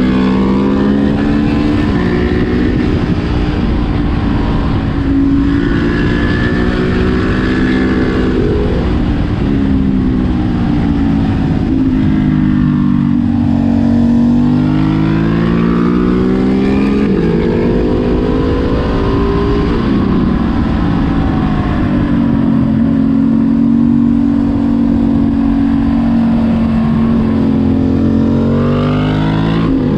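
Husqvarna 701 Supermoto's single-cylinder engine with a Leo Vince exhaust under way, pulling up in pitch and dropping back again and again as the rider accelerates, shifts and rolls off. Steady wind buffeting on the microphone runs underneath.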